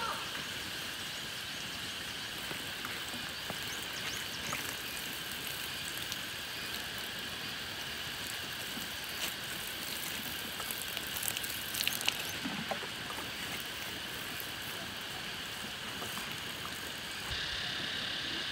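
A steady hiss of background noise, with a few faint clicks around the middle; the hiss changes character shortly before the end.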